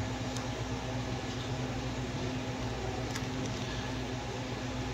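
Steady low hum with an even hiss of aquarium equipment running, without pause or change.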